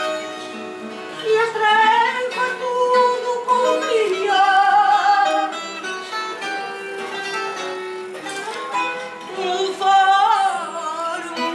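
Fado: a woman sings with vibrato, coming in about a second in, over a Portuguese guitar and a classical guitar (viola) picking the accompaniment.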